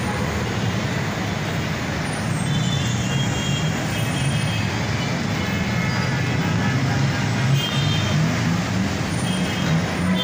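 Congested city road traffic of jeepneys, cars, trucks and motorcycles: a steady mass of engine hum and road noise, with faint high tones now and then from a few seconds in.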